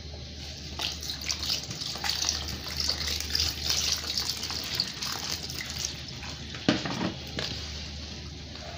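Wet shredded editan leaves being squeezed and worked by hand in water in a plastic colander, with splashing, sloshing and squelching as the water drains through: the leaves are being washed to rinse out their bitterness. A single louder knock comes near the end.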